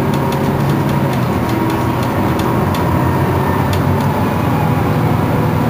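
Iveco Crealis city bus running: a steady low drone with a faint whine above it, and scattered light clicks and rattles.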